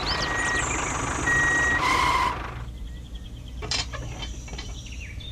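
Electronic beeps like a truck's reversing alarm: two steady high beeps, then a lower, louder one with a short hiss about two seconds in. After that the beeping stops, leaving quieter outdoor background with birds chirping.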